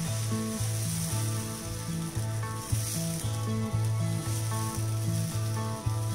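Dosa batter sizzling on a hot tawa as a ladle spreads it in circles, under background music with a steady, rhythmic bass line.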